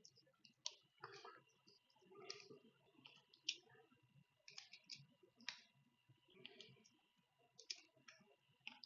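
Faint, irregular clicking and light knocks of small tools and hardware being handled while brushless motors are mounted on an FPV drone frame, with a few sharper ticks among them.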